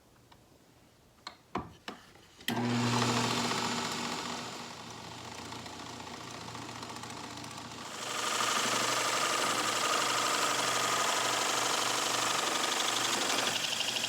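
A few light clicks, then a drill press motor switches on about two and a half seconds in and runs with a steady hum. About eight seconds in, the hole saw bites into the wood and cuts steadily, louder and with a whine.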